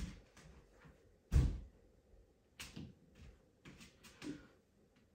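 A single heavy thump about a second and a half in, then several lighter knocks and bumps as someone moves about a room.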